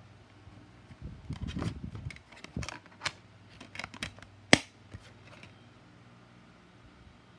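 Plastic DVD case and its disc being handled: a run of clicks and short rattles, with one sharp click about four and a half seconds in, then stillness.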